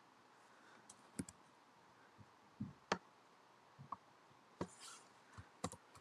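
Faint, irregular clicking of a computer mouse or touchpad button, about ten clicks, some in quick pairs.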